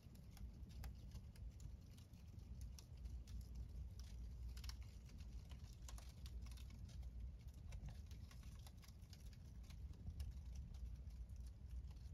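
Fire of embers and burning bags crackling faintly in a wire-mesh fire pit: scattered, irregular sharp pops and ticks over a steady low rumble.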